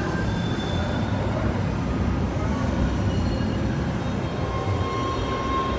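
Steady low rumble of a subway train running at the platform, with a thin steady whine coming in near the end.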